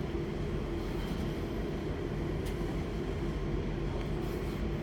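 Steady hum and low rumble inside a commuter train carriage, with a couple of faint clicks.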